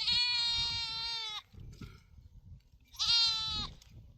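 Young herd livestock bleating twice: one long, high, steady call lasting well over a second, then a shorter call about three seconds in.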